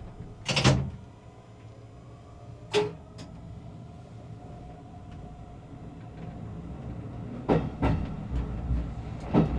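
Electric commuter train running, heard from the driver's cab: a steady low rumble with a faint hum, broken by sharp knocks, one about half a second in, another near three seconds, and several close together near the end.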